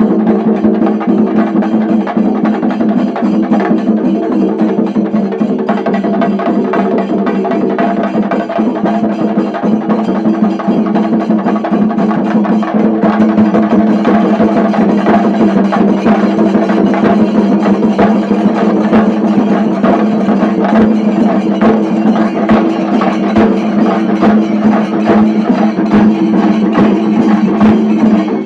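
Shinkari melam: a large group of chenda drums beaten with sticks in a fast, dense, unbroken rhythm, which stops abruptly at the end.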